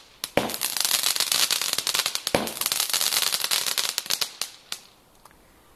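Fireworks crackling: a dense run of rapid small pops, with two louder bangs about half a second and two and a half seconds in, dying away about five seconds in.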